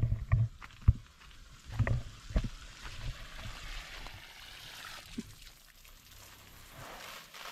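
Water running from the open end of a garden hose onto the soil, a steady hiss that fades near the end. A few sharp thumps sound in the first two and a half seconds.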